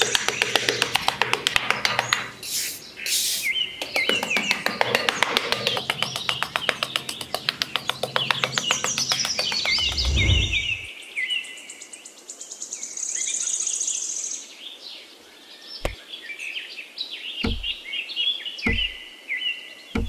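Birds chirping and tweeting, with a fast, steady ticking trill under them for the first half. A low thud comes about ten seconds in, and a few soft low knocks near the end.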